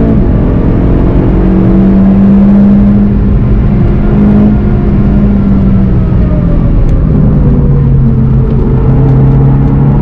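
VW Golf GTI TCR's turbocharged 2.0-litre four-cylinder engine pulling hard at high revs at speed. About six seconds in the driver lifts off and brakes, and the engine note drops to a lower, steady pitch. Road and wind noise run underneath.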